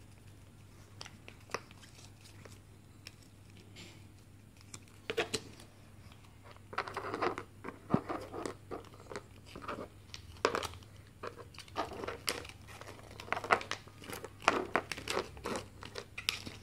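Thin plastic toy wrapper crinkling and tearing as it is opened, with light clicks of small plastic doll pieces being handled. The sounds come in short, scattered crackles, sparse at first and more frequent from about five seconds in.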